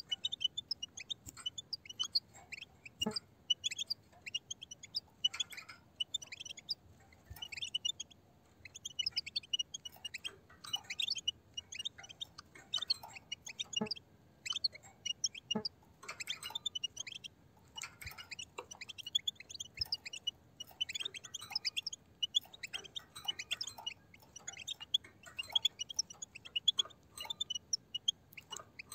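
A flock of European goldfinches twittering together: quick, high chirps that come in dense, irregular bursts, with several birds calling at once.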